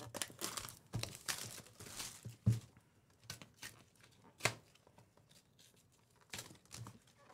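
Wrapping being torn off and crinkled as a sealed trading-card box is opened, with a few sharp cardboard clicks, the loudest about two and a half seconds in and again about four and a half seconds in.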